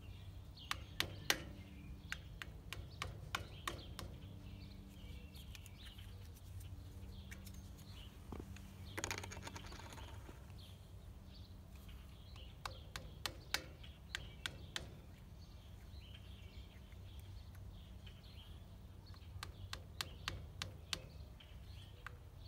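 Light taps of a rubber mallet starting a plastic glide into the cup of a wrought iron chair foot, in short runs of quick taps with pauses between them. The glide is going in crooked rather than straight.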